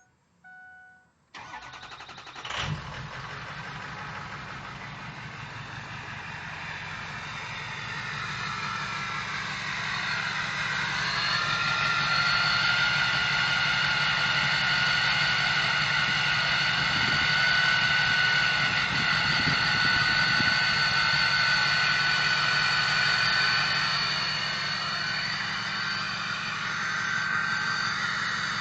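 Ford 6.0 Power Stroke diesel, fitted with a 2003-type turbo, starting after a short chime and settling to idle. From about ten seconds in, the turbo whistle rises and then holds as a steady high whistle over the engine's running.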